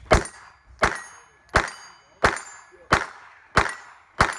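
Seven handgun shots in steady succession, about 0.7 s apart. Each is followed by the high ring of a steel plate target being hit.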